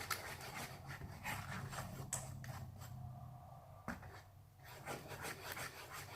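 Light scraping and rubbing as slime-kit containers and tools are handled at a table, a string of short scrapes over a low steady hum.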